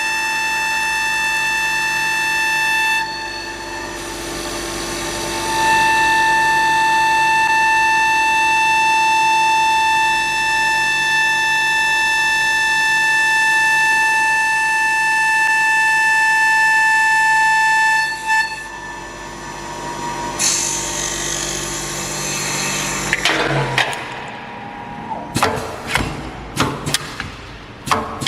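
EagleTec EA-T6015A automatic CNC wood lathe turning a turkey locator call mouthpiece: a steady high-pitched whine, with a dip a few seconds in, that stops about two-thirds through. Then a short rushing noise and a run of sharp mechanical clacks and knocks near the end as the machine moves on through its automatic cycle.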